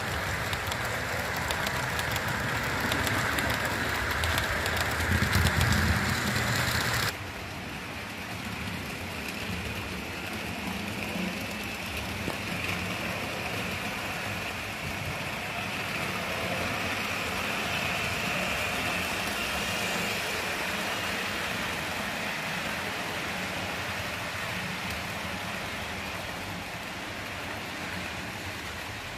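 HO-scale model trains on DC analog track, running with a steady rolling noise. The sound drops abruptly to a quieter level about seven seconds in.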